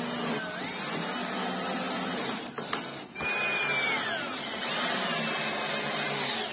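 Cordless drill running into plywood, its motor pitch sagging and recovering under load. It stops briefly about two and a half seconds in with a click, runs again, and cuts off near the end.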